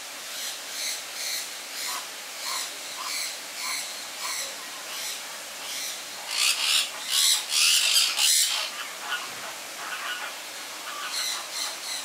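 American flamingos calling: short honks repeated about twice a second, with a louder, harsher stretch of calls about six to eight seconds in.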